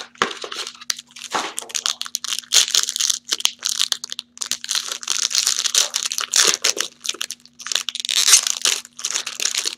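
Silver foil trading-card pack being torn open and crinkled by hand, a dense crackling that runs almost without a break and pauses briefly twice.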